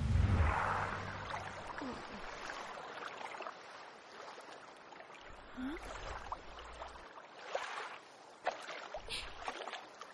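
A heavy splash into water at the start, then water sloshing and lapping, with a few short rising squeaks and small clicks in the second half.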